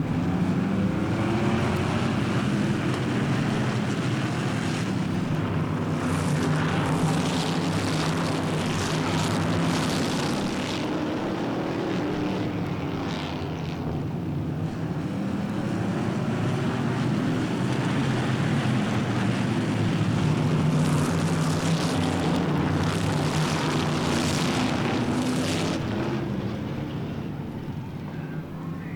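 Several stock car engines running at speed on a short oval track, their pitch rising and falling as they circle, swelling louder twice as the pack passes close.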